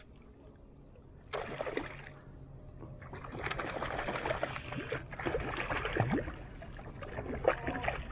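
Water splashing as a hooked fish thrashes at the surface while it is reeled in, in irregular bursts: a short splash about a second in, then busier splashing through the second half.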